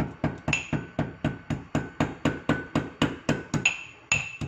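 Mortar and pestle pounding whole spices, ginger and jaggery coarsely, a steady run of about four strokes a second, each strike ringing briefly.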